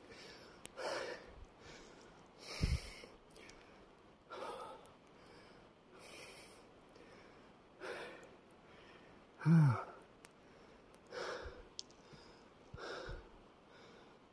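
A man breathing heavily, a loud breath every second or two, with one short voiced groan a little after halfway. This is the hard breathing of climbing uphill through snow.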